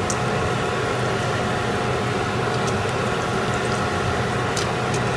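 Steady mechanical hum with an airy hiss, at an even level throughout, with a few faint light clicks as pieces of dried fish drop into a large aluminium pot.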